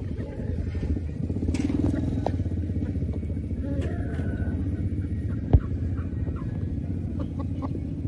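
An engine running steadily, a low rumble of rapid even pulses, with one sharp click about five and a half seconds in.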